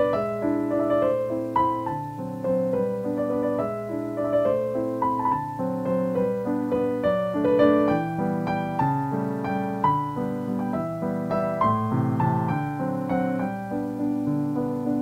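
Background piano music, a continuous run of melodic notes.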